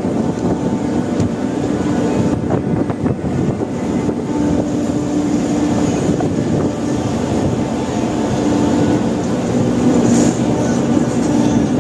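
Steady loud drone of a bulk carrier's engine and machinery, with a constant low hum running under it.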